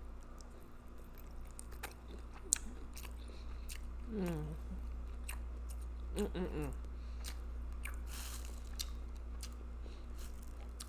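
A person eating, with chewing, biting and wet mouth clicks and smacks scattered through, and two short falling hummed vocal sounds about four and six seconds in.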